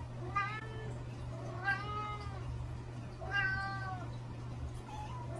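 A cat meowing three times, about a second and a half apart.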